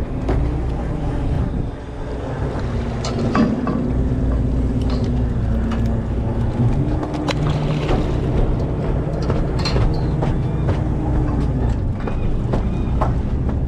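Steady drone of a commercial longliner's machinery while the gear is hauled, its low tone stepping up and down in pitch a few times, with scattered sharp clicks and knocks of gear against the rail.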